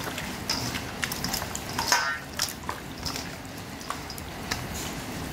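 Hands squelching and turning chunks of raw beef in a wet marinade in a stainless steel bowl, with irregular short wet smacks and clicks.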